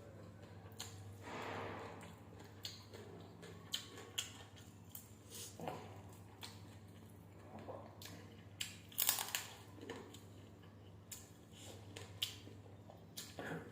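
Close-up eating sounds of chicken fried biryani: chewing with irregular short crunches and mouth clicks, the loudest about nine seconds in, over a steady low hum.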